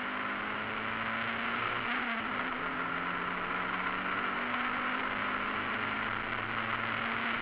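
Mazda MX-5 race car's four-cylinder engine running steadily at racing speed, heard from inside the cockpit over a hiss of wind and road noise. Its pitch dips briefly about two seconds in, then holds steady again.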